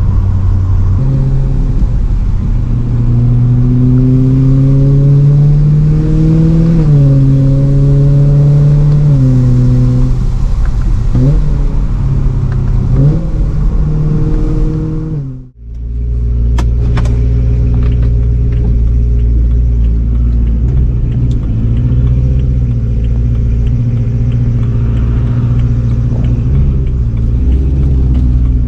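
BMW M3 E92's V8 engine pulling through the gears, its note climbing and dropping back several times, over the hiss of tyres on a wet road. About halfway the sound cuts out briefly, then the engine drones steadily at a constant speed.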